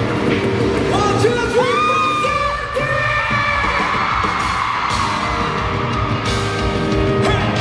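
Live rock band playing, with a voice singing long notes that slide up and hold.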